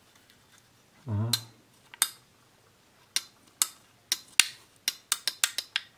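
Steel screwdriver shaft clicking against a plastic tool magnetizer as it is drawn through the magnetizing slot. There are a few single sharp clicks, then quicker clicks near the end.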